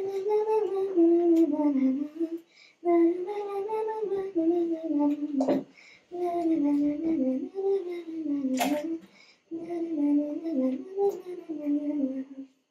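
A girl's voice singing a tune in four short phrases, with a few sharp knocks, the loudest about two-thirds of the way through.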